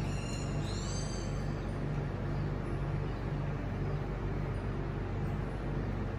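Steady low mechanical hum, with a short high chirp that rises and falls about a second in.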